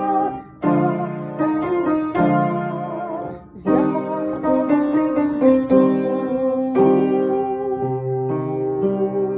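Keyboard music: an electric piano plays a slow melody over held chords that change every second or so, with two brief breaks, one about half a second in and one around three and a half seconds.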